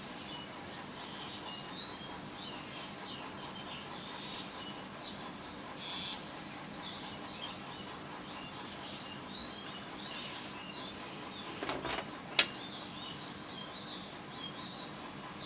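Small birds chirping repeatedly in the background, with a faint high pulsing tone under them. A few brief scratchy rustles come through, and one sharp tap about three-quarters of the way through.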